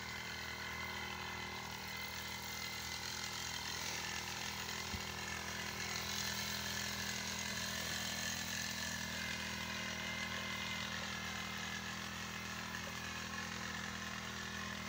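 A steady mechanical drone with a low hum, like an engine running at a constant speed.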